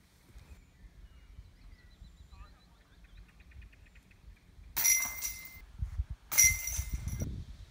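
Metal disc golf basket struck twice, about a second and a half apart. Each strike is a loud chain rattle with a bright metallic ring that dies away within a second. Faint bird chirps come before them.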